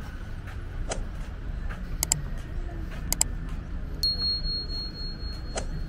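Outdoor walking ambience: a steady low rumble with a few sharp clicks, two of them doubled. About four seconds in, a click sets off a single high, bell-like ringing tone that holds steady for almost two seconds.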